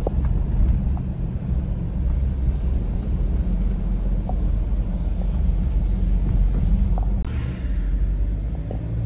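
Car driving along, a steady low rumble of engine and road noise, with a short hiss about seven seconds in.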